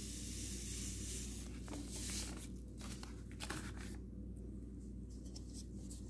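A soft hiss of coarse tumbling grit pouring into a rock tumbler's barrel of water and rocks, fading about two seconds in, then a few brief crinkles of the plastic grit bag.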